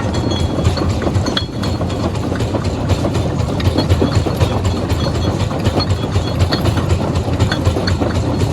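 Heavy machinery running: a steady low rumble with a continuous rattling and knocking clatter.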